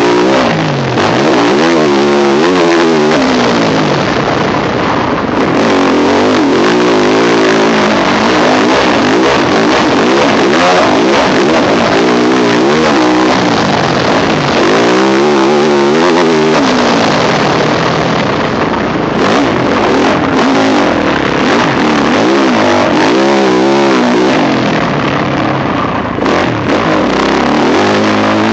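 Yamaha YZ450F single-cylinder four-stroke motocross engine under hard riding, heard from the rider's helmet camera. It revs up and drops back over and over as the throttle is worked and gears are changed, over a constant rushing noise.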